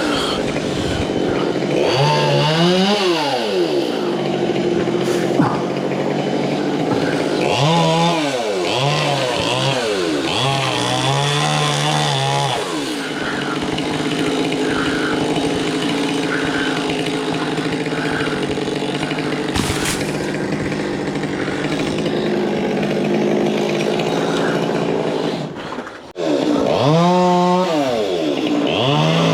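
Petrol chainsaw revving up and falling back several times, running steadily in between, with a brief drop-out near the end before it revs up again.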